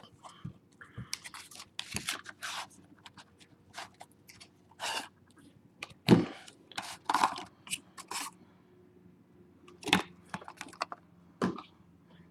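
Trading card packaging being opened by hand: irregular crinkling, rustling and tearing of wrappers and cardboard boxes.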